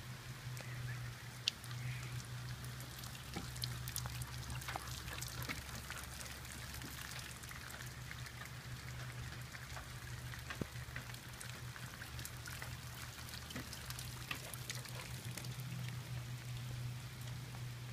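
Rain falling, with many separate drops tapping sharply on a hard surface over a steady hiss. A steady low hum runs underneath.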